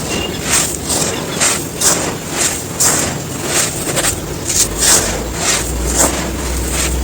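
Dry pure sand crumbling in a quick series of crisp, crunchy bursts, about two a second. A low rumble joins in during the second half.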